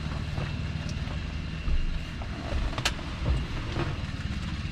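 A car engine idling steadily, a low rumble, with a few faint knocks and one sharp click a little under three seconds in.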